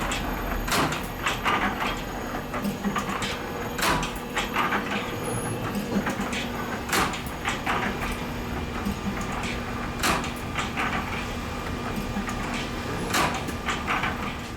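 Spring-making machine running with a steady hum, broken by irregular sharp metallic clicks and knocks about once a second.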